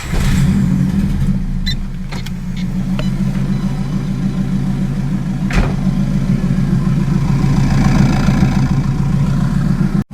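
Turbocharged car engine, with its big open exhaust and no turbo whistles fitted, catching and settling into a steady idle just after being started cold. A few light clicks sound over the idle.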